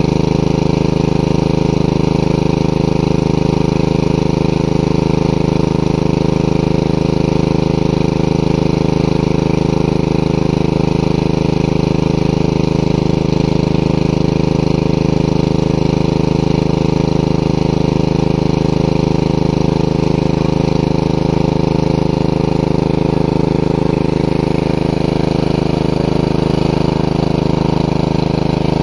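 Small engine of a water pump running steadily at one constant speed.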